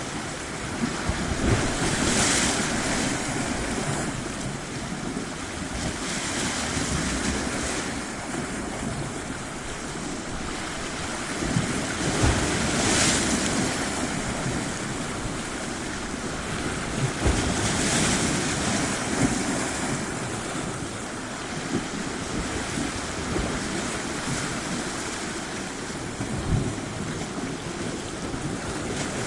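Ocean waves washing onto the shore, surging and falling back about every five seconds, with occasional low thumps of wind on the microphone.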